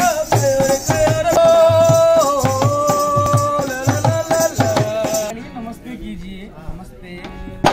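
Rajasthani folk song: a held, stepping sung melody over a steady hand-drum beat. About five seconds in the music drops to a quieter, thinner sound.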